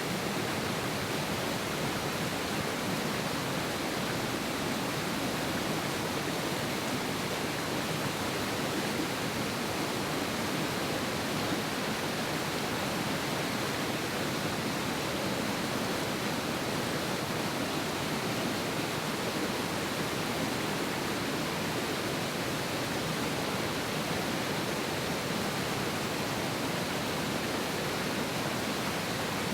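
A fast mountain river rushing over rocks: a steady, even roar of water.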